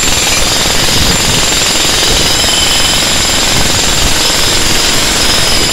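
Ryu RDH 50 electric demolition hammer running continuously, its chisel bit hammering into a concrete floor slab. A steady high whine rides over the hammering.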